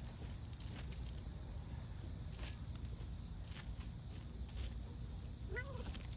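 Steady low background rumble with a few faint clicks, then a short, quiet cat meow near the end.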